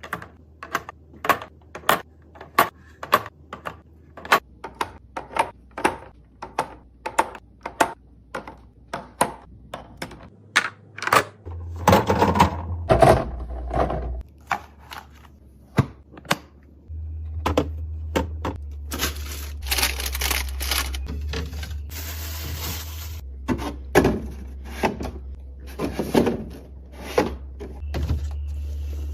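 Rapid clacks and knocks of plastic and glass containers, lids and bottles being handled and set down while stocking a fridge, about two a second at first. Heavier knocks come near the middle, and a few seconds of steady noise follow later on.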